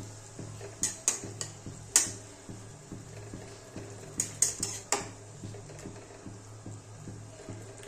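Metal spatula stirring a vegetable and prawn curry in a metal kadai, clinking and scraping against the pan: a few sharp clinks about a second in, another near two seconds, and a quick cluster around four to five seconds. A steady low hum runs underneath.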